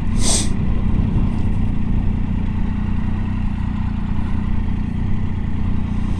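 Triumph Tiger 800 XCa's three-cylinder engine running steadily at low revs, with a brief hiss shortly after the start.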